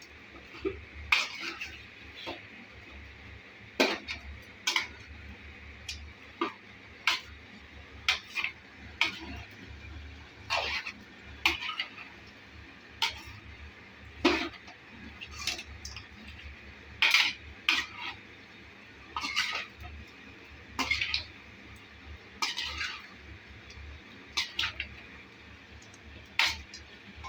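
A spoon clinking and scraping against a cooking pot at irregular intervals, about once a second, as chicken pieces coated in turmeric powder are stirred. A steady low hum runs underneath.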